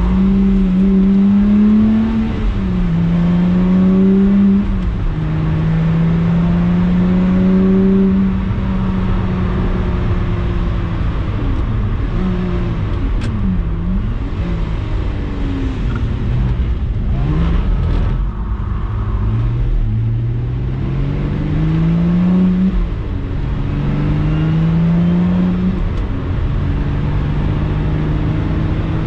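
Lotus Exige 350 Sport's supercharged 3.5-litre V6 under hard driving. The revs climb, drop suddenly at upshifts, dip when the throttle is lifted about halfway through, then climb in steps again.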